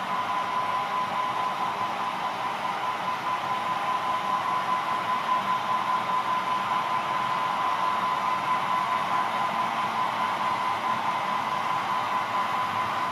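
HO-scale model trains running on the layout, a steady whirring of small motors and wheels on rail with a faint steady hum, swelling slightly midway.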